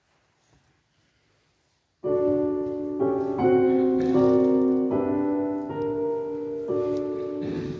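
Piano playing the introduction to a choral piece: after a near-silent pause it comes in about two seconds in with sustained chords that change roughly every second, leading into the choir's entry.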